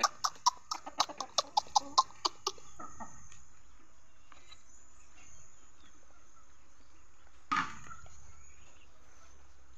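Rooster clucking rapidly, about five short clucks a second for the first two and a half seconds, then falling quiet apart from one short louder call about seven and a half seconds in. Quick clucking of this kind is a rooster's food call over a morsel.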